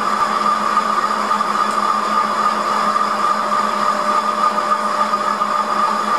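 An old Maxim metal lathe running steadily, a boring bar cutting inside the bore of a spinning metal plate. It makes a steady low hum with a constant high whine over it.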